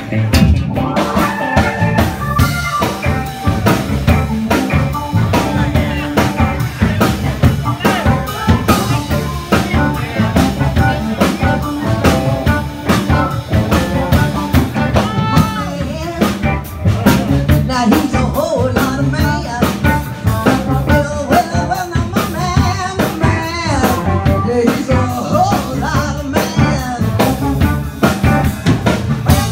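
Live band playing an upbeat blues-rock number, with drum kit, electric guitar and saxophone.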